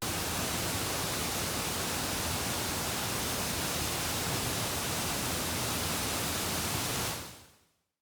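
Rushing water of a mountain stream, a steady, dense noise that cuts in suddenly and fades out near the end.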